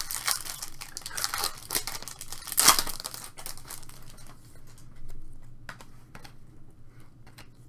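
Foil trading-card pack wrapper being torn open and crinkled, the sharpest rip about two and a half seconds in. After that come quieter slides and ticks as the cards are handled and flipped.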